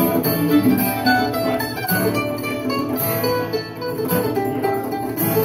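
Live acoustic music: an acoustic guitar strummed along with a fiddle.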